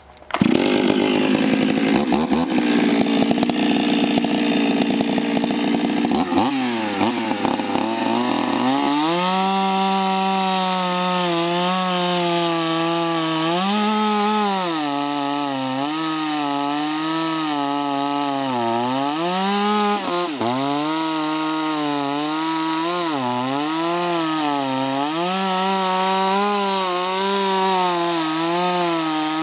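Stihl 026 two-stroke chainsaw with a modified, opened-up muffler, running up loud right at the start and then cutting through a log of hard crotch wood from about nine seconds, its engine pitch sagging and recovering over and over as it loads in the cut. The owner suspects its chain was a little dull.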